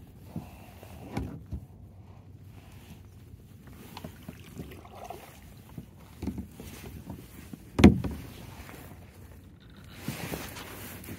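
Scattered light knocks and bumps on a kayak, with one sharp, loud thump about eight seconds in, then a rustling scrape near the end.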